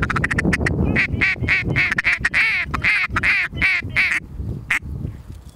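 Mallard duck call blown at passing ducks: a rapid chattering feed call, then a steady run of hen quacks, about four a second, each dropping in pitch, that stops about four and a half seconds in.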